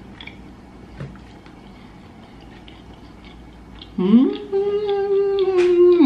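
A woman hums one long closed-mouth "mmm" about four seconds in, rising in pitch and then held steady for about two seconds. Before it there are only a few faint clicks over soft room noise.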